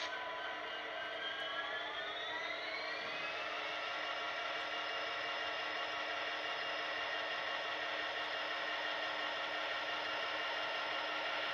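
Model BNSF diesel locomotives running: a steady mechanical whine of several tones with a hiss. The whine rises in pitch about one to three seconds in, then holds level.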